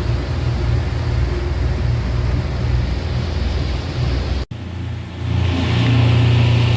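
Boat engine running steadily underway, a low drone. After a sudden break a little over four seconds in, the engine is louder and joined by the rush of water from the boat's wake.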